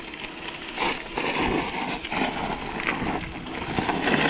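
Mountain bike rolling downhill over a rough dirt and loose-stone track: tyres crunching on gravel and the bike rattling over bumps, in an uneven noisy stream with scattered small knocks.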